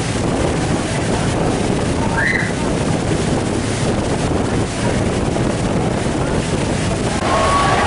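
Steady roar of Niagara Falls heard from the tour boat in the spray, with wind buffeting the microphone.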